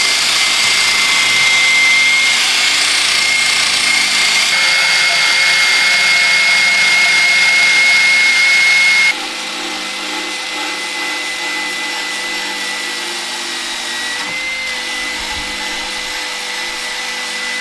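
Cordless drill spinning a wire wheel brush against rusty steel chassis metal, stripping rust ahead of a rust-proofing treatment: a steady high whine over scratchy grinding. It drops abruptly in loudness about nine seconds in and runs on steadily.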